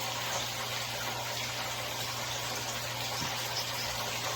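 Steady hiss with a faint low hum, of chicken tenders cooking on the stove.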